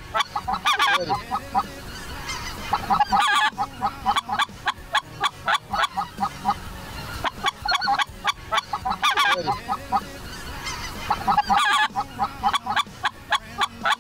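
A large flock of snow geese calling, with many short honks overlapping in dense bursts.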